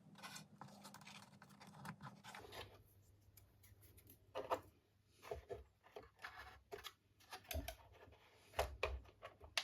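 Faint, scattered light clicks and brief rubbing as small model-boat parts (prop shaft tubes, spacers, clamps) are handled and fitted by hand, the loudest click about four and a half seconds in and a cluster near the end.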